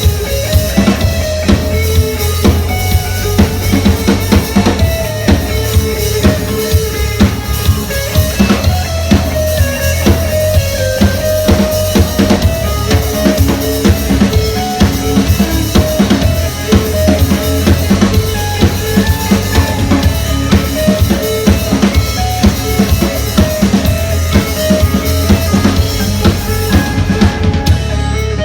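Live rock band playing: a drum kit keeps a steady beat of kick and snare under a sustained bass and a repeating melodic line. The drums drop out near the end.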